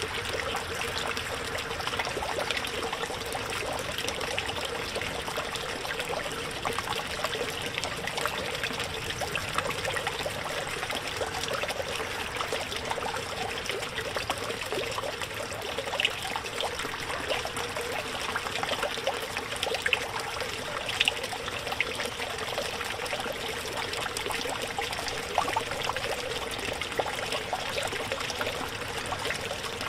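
Small backyard pond fountain: a submersible pump's spray head splashing and trickling water steadily back onto the pond surface.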